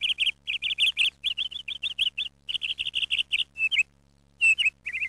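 A small bird chirping: quick runs of short, high-pitched chirps, about eight a second, with a brief break near the end.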